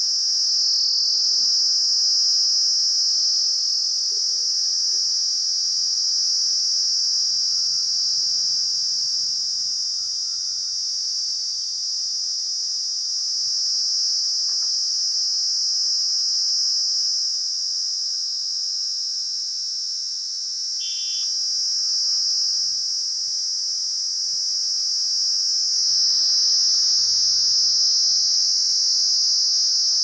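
Kaempfer cicada (Platypleura kaempferi) giving a steady, high-pitched buzzing drone without a break, dipping slightly in the middle and swelling louder near the end.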